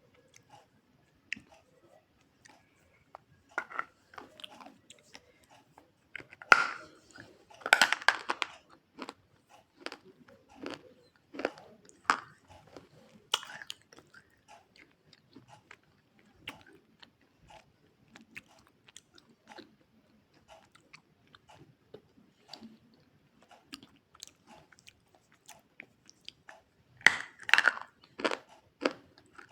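Biting and chewing hard chunks of white edible clay close to the microphone: scattered sharp crunches and clicks, with louder crunching about seven seconds in and again near the end. The clay is hard and breaks only with difficulty.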